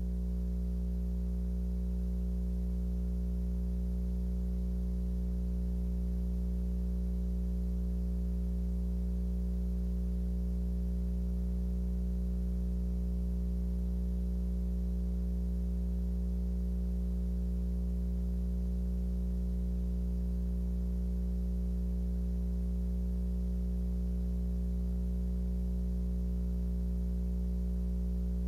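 Steady low electrical hum with a stack of evenly spaced overtones, unchanging throughout.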